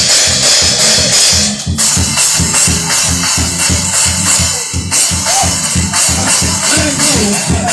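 Up-tempo church praise music at full volume: a drum kit hammering a fast, even beat, with a tambourine jingling over it.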